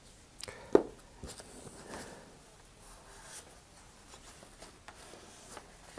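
Small handling noises on a workbench: one sharp knock a little under a second in, then soft rustling and a few light clicks as hands handle a paper towel.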